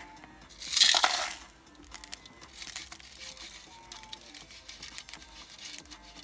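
Gravel paydirt rasping and clicking as a hand rubs it across the wire mesh of a gold-panning classifier set in a plastic gold pan. A short loud rush of grit comes about a second in.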